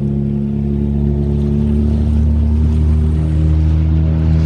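Motorboat engine running steadily with a low, even drone.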